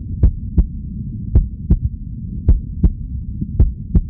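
Heartbeat sound effect: pairs of low thumps, one pair about every second, over a steady low drone. It is a suspense cue before an answer is revealed.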